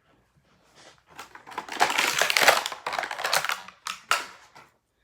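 Toy packaging being handled and opened: a run of rapid crackling and clicking, loudest in the middle and stopping shortly before the end.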